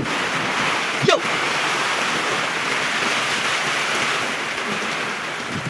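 Torrential rain falling steadily on concrete paving and the garden, an even, unbroken hiss. A single short click sounds about a second in.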